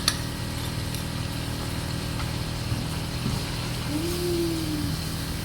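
Beef and black pepper frying in a pan, with a light sizzle and a utensil clicking twice at the start, over a steady low rattling drone. A short rising-then-falling tone sounds about four seconds in.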